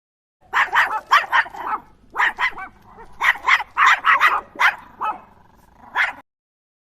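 A dog barking repeatedly: about fifteen short barks in quick runs.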